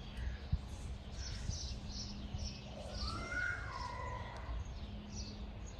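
Small birds chirping in quick short notes throughout, with one longer wavering call rising and falling about three seconds in.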